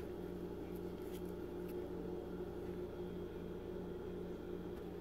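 Steady low electrical hum, with a few faint dry rustles of a hand working flour and sticky dough in a plastic bowl about one to two seconds in.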